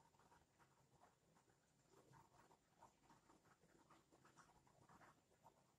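Very faint, scratchy rustling of buttered kadayıf (shredded pastry) strands as fingers press them into a small cup, in many small irregular crackles.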